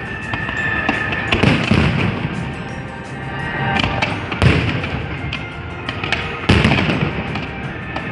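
Fireworks display: aerial shells booming and crackling, with the loudest bursts about one and a half, four and a half and six and a half seconds in, over music.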